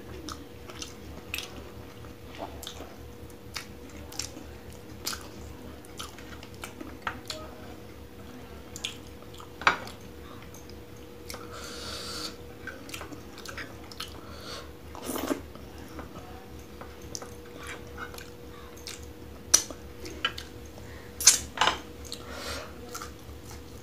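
Close-miked mouth sounds of eating: wet chewing with sharp lip smacks and clicks at irregular intervals, several loud ones near the end. About halfway through comes a brief rustle of fingers gathering rice on a plate, with a faint steady hum underneath.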